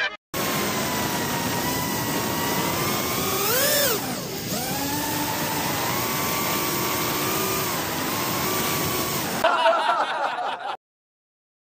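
FPV freestyle quadcopter's motors and propellers whining with a hiss of prop wash. About three and a half seconds in the pitch climbs sharply, then drops away into a steadier whine that wavers up and down. The sound cuts off near the end.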